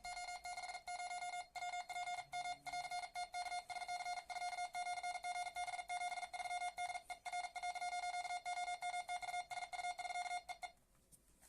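Morse code (CW) sidetone from a ham radio transceiver: a single steady-pitched beep keyed on and off very rapidly by a single-lever paddle, at close to 50 words per minute. It stops abruptly near the end.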